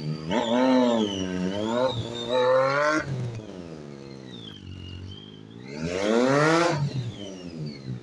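Triumph ST675 motorcycle's 675 cc inline-three engine revving up and falling off again and again as the rider accelerates and brakes between cones. The revs drop sharply about three seconds in, and there is a long hard rise near the end.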